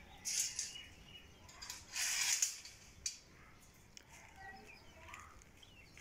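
Domestic pigeons feeding on a concrete floor: two short rustling bursts, the louder one about two seconds in, and a few faint bird calls near the end.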